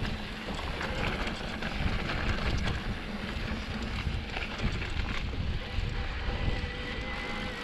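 Specialized Turbo Levo electric mountain bike riding a trail: wind buffeting the microphone over the rumble of the tyres and the rattle of the bike, with many small clicks and knocks. A faint steady whine is heard near the end.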